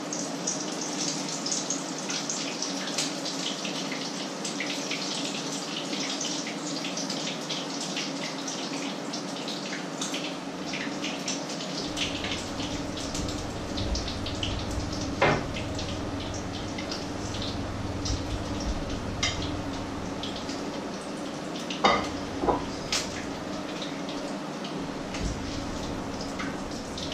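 Food frying in an open pan: a steady crackling sizzle, with a low hum underneath. A few sharp clinks of utensils on pans or dishes come through, about halfway and twice near the end.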